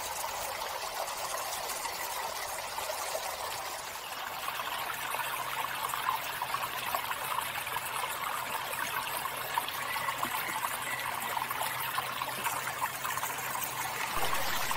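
Waterfall running: a steady, even rush of falling water.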